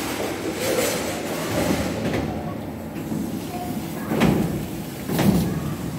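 KONE passenger lift heard from inside its stainless steel car: a steady mechanical noise of the car and its sliding doors, with two sharp knocks about four and five seconds in.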